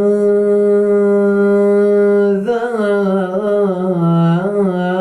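A man's voice reciting a Quran verse in melodic chant, holding one long steady note for about two and a half seconds, then wavering through ornamented turns of pitch.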